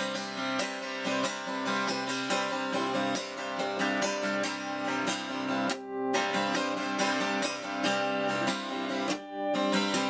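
Acoustic guitar strummed in a steady rhythm, an instrumental passage with no singing; the strumming briefly drops out twice, near the middle and near the end.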